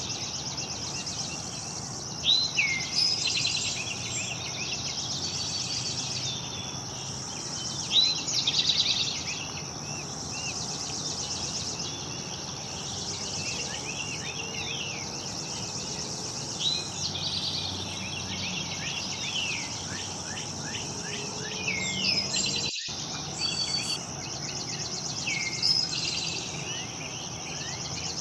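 Songbirds chirping and calling in short phrases over a steady, high, rapidly pulsing drone of insects. The sound cuts out for an instant about two-thirds of the way through.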